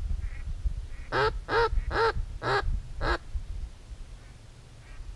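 A series of five loud, close hen-mallard-style quacks, a little over two a second, with a few fainter quacks before and after them.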